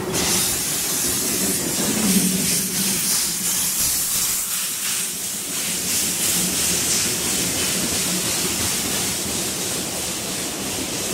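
A Welsh Highland Railway narrow-gauge steam locomotive passing close by, its escaping steam making a loud, steady hiss, as its carriages roll past on the rails.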